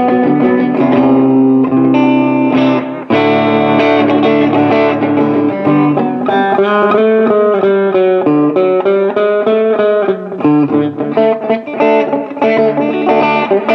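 Electric guitar played through a Memphis Echo ME-8 8-track tape delay, with some notes wavering in pitch partway through. The delayed signal sounds out of tune, which may be because a rubber band is standing in for the stretched drive belt.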